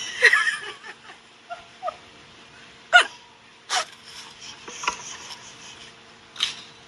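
Small dog giving short, sharp barks, four of them roughly a second apart in the second half.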